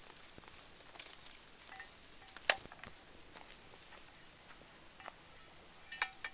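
Faint footsteps through forest grass, then a small shovel cutting into moss and soil beside a tree stump. Scattered sharp clicks and clinks, the loudest a single click about two and a half seconds in and a short ringing clink about six seconds in.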